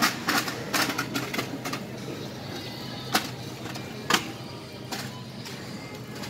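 A quick run of clicks and clatters, then two sharp clicks about a second apart, over quiet background music.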